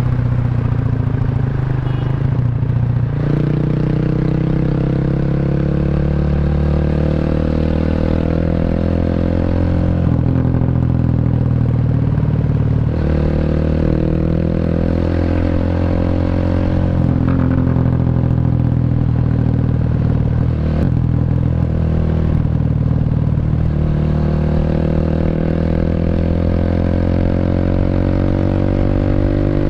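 Exhaust note of a Honda Revo single-cylinder four-stroke bored up to 150cc, through a CLD C7 aftermarket muffler, as the bike accelerates: the pitch climbs steadily, drops at each gear change and climbs again, several times over.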